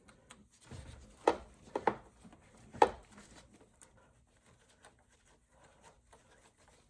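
Hand work on a starter motor and its mounting bolt in a car's engine bay: four sharp clinks and knocks of metal parts in the first three seconds, then faint handling noises.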